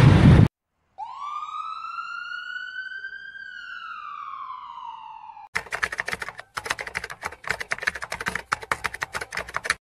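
Edited-in intro sound effects. After a brief burst of vehicle road noise, a single siren-like whistling tone rises for about two and a half seconds and falls for two more. Then comes about four seconds of rapid keyboard-typing clicks.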